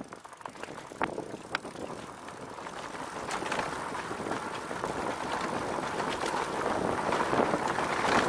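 Rad Power Bikes RadRover fat-tyre e-bike riding over a dirt trail. A few sharp knocks and rattles from the bike over bumps come in the first two seconds, which the rider takes for loose parts. Then a rushing noise of tyres and wind on the camera grows steadily louder as the bike picks up speed.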